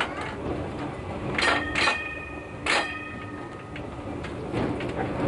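Vintage electric tram running along the track, a steady rumble from its wheels. About a second and a half in, three sharp metallic clanks ring briefly and fade, two close together and one about a second later.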